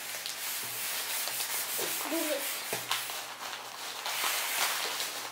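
Hands rubbing and brushing across a tabletop, a run of short scratchy strokes.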